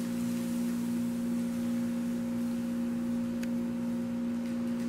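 A steady, unchanging low-pitched hum, with two faint light rustles or clicks in the last couple of seconds as a paper sugar bag is handled.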